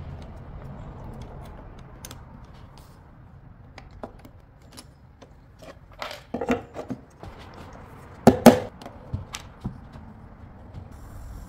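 Scattered light clicks, then sharp wooden knocks: a cluster about six seconds in and the loudest pair about two seconds later, as a wooden batten and horseshoe nails are set hard against the edge of a leaded stained-glass panel on the workbench to square it up.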